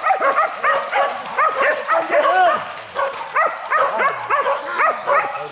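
Several hunting dogs barking and yelping in rapid, overlapping calls at different pitches, with no break.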